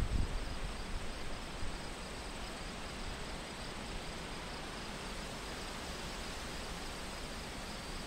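Open-field ambience: a faint, steady pulsing chirr of field insects over a soft hiss of wind through grass. Wind buffets the microphone with a low rumble in the first half-second, then it stays even.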